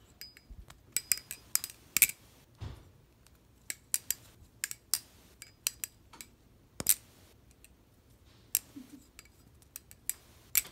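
Butterfly knife (balisong) being flipped: a run of irregular sharp metal clicks and clacks as the handles swing around the pivots and knock together, some with a short metallic ring.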